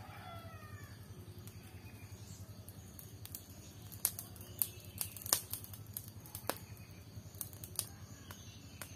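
A rooster's crow tails off right at the start, then a scatter of sharp clicks and snaps, most of them between about four and eight seconds in, over a low steady hum.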